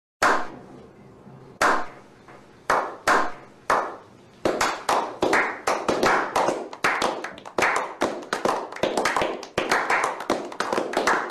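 A slow clap by a small group of people: single sharp hand claps about a second apart, speeding up and thickening into steady applause about halfway through.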